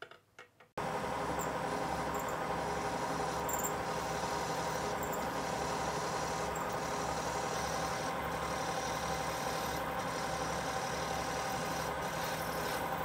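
Milling machine spindle running steadily while drilling out the rest of the holes in an aluminium part. The sound starts suddenly about a second in, with faint high ticks about every second and a half.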